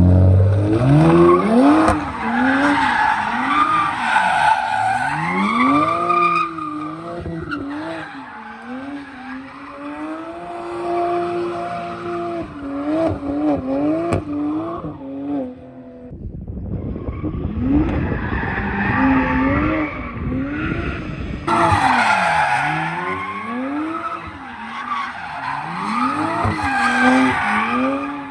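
BMW 1M Coupe's twin-turbo N54 inline-six through a full Akrapovic titanium exhaust, driven hard. Its pitch climbs and falls again and again as the revs rise and drop, with a short lull of plain road noise about halfway through.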